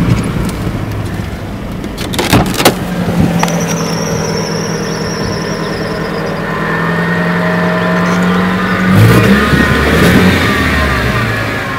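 Off-road car's engine running as it drives along a rough, wet field track, with a couple of loud knocks about two seconds in. A faint high whine comes and goes in the middle, and the revs rise and the engine gets louder near the end.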